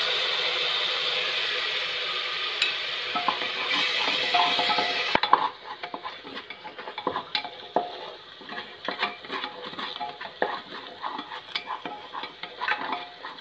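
Ground tomato sizzling loudly as it hits hot oil and onions in an aluminium pressure cooker; the sizzle drops away suddenly about five seconds in. After that, a wooden spatula stirs the mixture, scraping and knocking irregularly against the pot.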